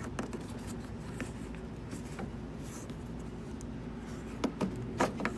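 Faint clicks and scraping of the plastic turn-signal housing and bulb socket being handled, with a few sharper clicks near the end, over a steady low hum.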